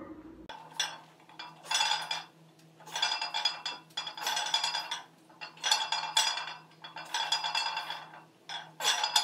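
Iron weight plates clinking and rattling on the sleeves of a loaded barbell, a burst of ringing metallic clinks with each rep of a back squat. A faint steady hum runs underneath.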